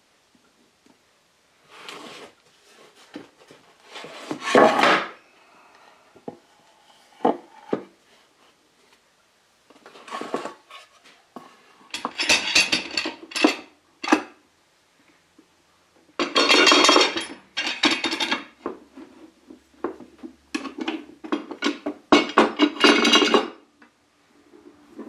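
Wooden caul boards being set down and shifted over a veneer repair on a workbench: clattering wooden knocks and scraping in several bursts, with dense runs of rapid clicks later on as the press-down is set up.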